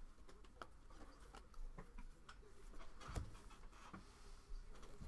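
Faint, irregular ticks and clicks of trading cards being flipped one by one through a stack by hand.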